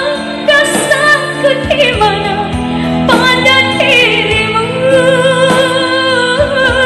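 A woman singing into a handheld microphone over backing music, holding a long wavering note through the second half.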